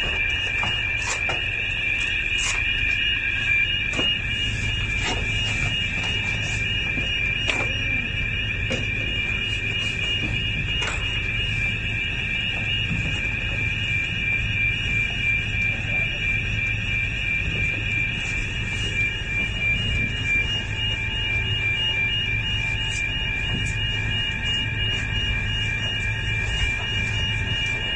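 Vessel's alarm sounding continuously for a safety muster drill, a steady high-pitched electronic tone, over the low hum of the trawler's engine, with scattered knocks of gear being handled.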